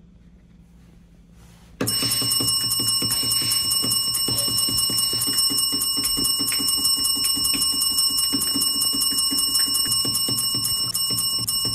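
An alarm bell rings continuously with rapid, even strikes. It starts suddenly about two seconds in and stays loud throughout.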